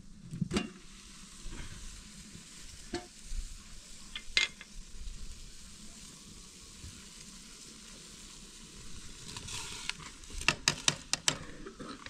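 Food frying and sizzling in a pan over a fire, a steady hiss, with a utensil clicking against the pan a few times and a quick run of clicks near the end as it is stirred.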